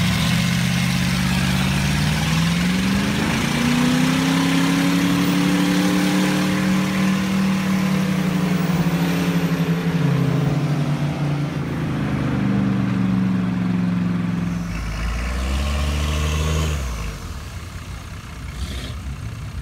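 Turbo-diesel truck engine revving hard at full throttle. Its pitch climbs over a few seconds and holds high, falls away, climbs again, then drops sharply in loudness near the end.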